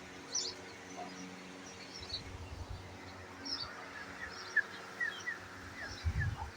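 Small birds chirping with short high calls. From about four seconds in there is a run of short falling whistled notes, about two a second. Under them are a faint steady hum and a couple of brief low rumbles.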